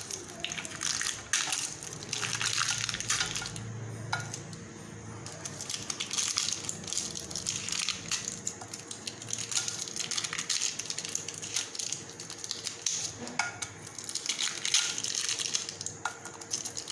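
Butter paper crinkling and rustling under fingers as baked egg biscuits are picked off it, with many small irregular crackles and light clicks.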